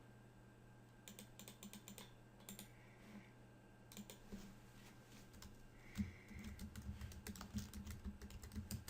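Faint typing on a computer keyboard: scattered key clicks that come thicker and quicker in the second half, over a low steady hum.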